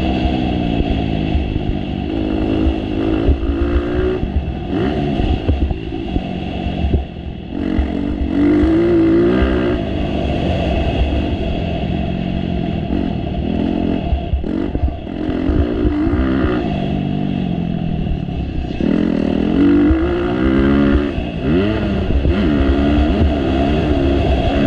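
Motocross dirt bike engine close up, revving up and down as the rider works the throttle around the track, with brief drops where the throttle is shut off, and the bike rattling over the bumps.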